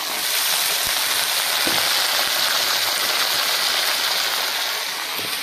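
Raw chicken pieces sizzling loudly in hot mustard oil and fried onions in a steel kadhai as they are added. The hiss is steady and grows louder just after the start.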